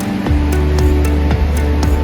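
Background music with a steady beat and a strong bass line; the bass comes in about a quarter of a second in.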